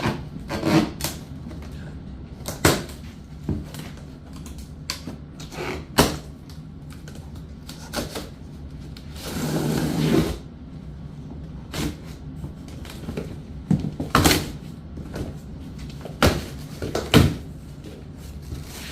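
Shipping boxes being opened and their contents handled: scattered knocks, bumps and clicks, with a longer rustling scrape about nine seconds in.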